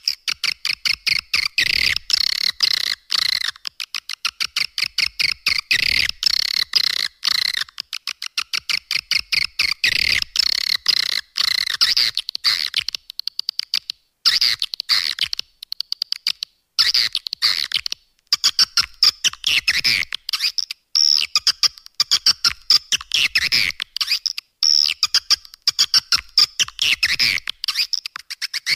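Edible-nest swiftlet calls: a dense, continuous chatter of rapid clicks and high twittering chirps. This is a swiftlet lure call, played to attract the birds to roost and nest.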